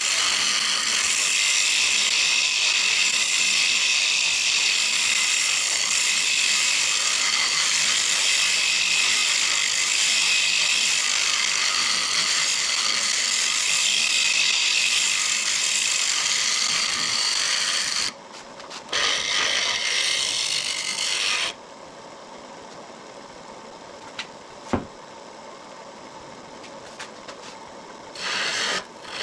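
A turning gouge cutting into a spinning wood blank on a lathe, a steady loud hiss of shavings being peeled off. The cutting breaks off about 18 seconds in, resumes briefly, then stops, leaving the lathe's quieter steady running with one sharp tap, before the tool bites in again near the end.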